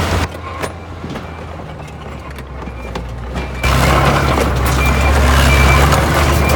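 Diesel engine of a TL130 skid steer loader running steadily, then jumping much louder about three and a half seconds in as it is throttled up or put to work.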